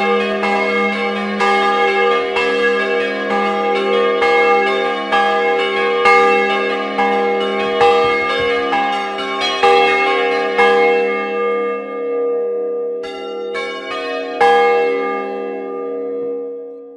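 Tuned bronze church bells cast by Francesco De Poli in 1994, rung in the Bolognese doppio style on a portable frame: fast overlapping strikes over a steady ring. About ten seconds in the strikes thin to a few last strokes, and the ringing dies away near the end as the bells are brought to rest.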